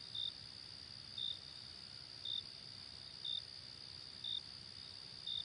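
Faint crickets: a steady high trill with a separate short chirp repeating about once a second.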